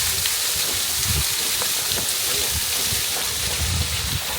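Steady rush of water from a waterfall that is only partly frozen, with low, irregular thumps underneath.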